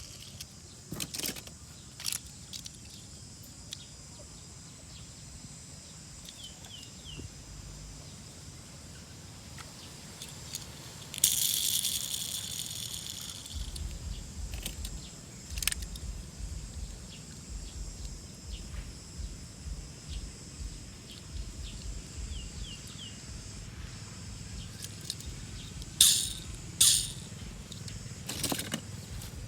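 Scattered light clicks and rattles, with a short hiss about eleven seconds in and a low rumble from about fourteen seconds on.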